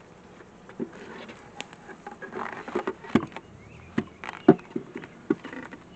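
Irregular wooden clicks and knocks from beehive frames and hive parts being handled and set in place, with the sharpest knocks about three and four and a half seconds in.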